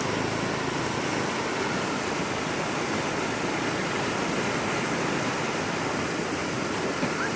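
Steady rush of flowing floodwater, an even noise with no distinct events.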